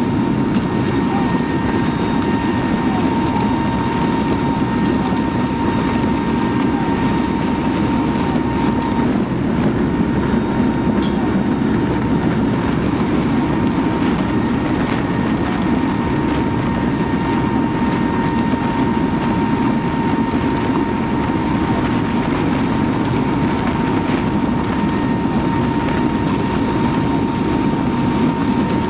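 Steady loud drone of a military transport aircraft's engines and wind rushing past the open rear ramp, with a thin steady whine running through it.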